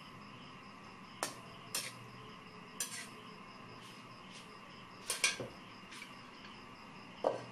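Metal spatula clinking against a metal wok while bottle gourd and pork are stirred: about seven short, sharp clinks, irregularly spaced.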